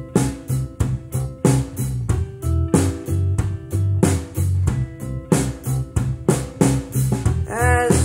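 A song with a steady drum beat, bass and guitar, played through Sony SS-CS5 three-way bookshelf speakers and picked up in the room. A singing voice comes in near the end.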